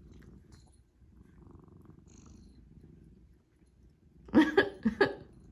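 Domestic cat purring close to the microphone, a faint steady low rumble. About four seconds in, a quick run of four short, loud cat calls.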